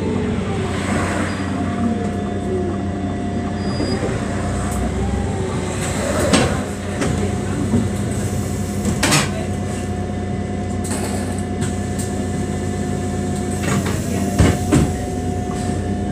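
City bus running, heard from inside the cabin: a steady engine hum with a higher whine, and a few sharp knocks and rattles from the bus about six, nine and fourteen seconds in.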